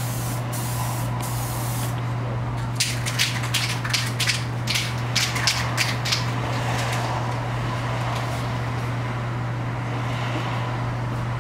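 Aerosol spray can hissing as it coats a plastic headlight lens: one continuous spray for about two seconds, then a run of short bursts over the next few seconds. A steady low hum runs underneath.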